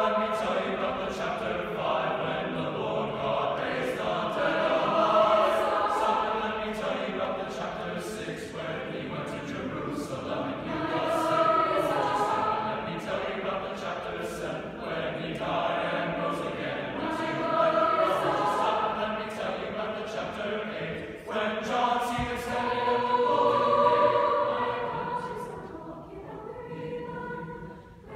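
Mixed high school concert choir singing a spiritual, the full sound swelling and falling in waves, with crisp consonants, and growing softer near the end.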